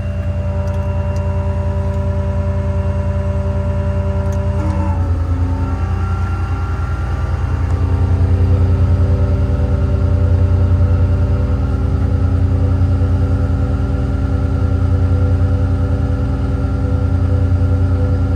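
The 6.7-litre Cummins diesel of a 2014 Ram 5500 running steadily under way. Its pitch changes about five seconds in, and it gets somewhat louder from about eight seconds on.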